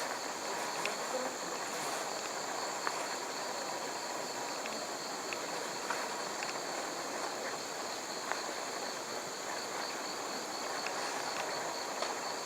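Insects chirring steadily in a continuous high-pitched chorus, one part pulsing rapidly, with a few faint, irregular clicks scattered through it.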